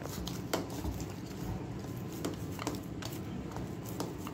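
Light, scattered taps and clicks, about six in four seconds, over a steady low hum.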